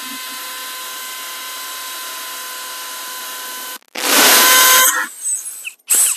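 Cordless drill running steadily on the wall, stopping just before four seconds in, then a louder burst of drilling for about a second and a short final burst near the end.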